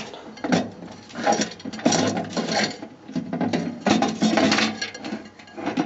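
A microwave turntable being moved and rattled while stray popcorn is cleared from under it: irregular clattering, knocking and scraping.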